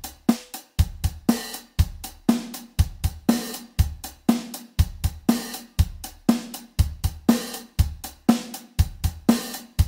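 Virtual drum kit from the MDrummer plugin playing a steady beat, with kick drum, snare and cymbals in an even, regular rhythm.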